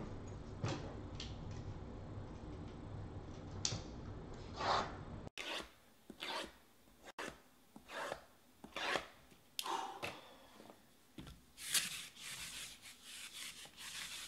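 A steady low hum with a few faint strokes, cutting off about five seconds in. Then rasping rubs about a second apart as hands slide over sealed card boxes on a cloth-covered table. Near the end, a sticky lint roller is rolled back and forth over the cloth in quicker strokes.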